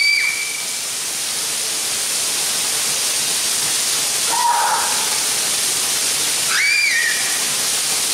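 Steady hiss of heavy rain pouring down. About seven seconds in, a child's short high cry rises and falls over it.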